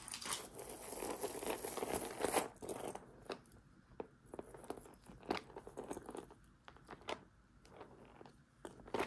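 Crinkling, rustling handling noise for about three seconds, then scattered light clicks and taps as metal jewelry chains are picked up and set down on a plastic tray.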